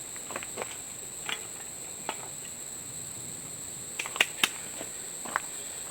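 Scattered light clicks and knocks of an engine-bay cover and its fasteners being handled and lifted off, a few spaced out and a quick cluster about four seconds in, over a steady high-pitched whine.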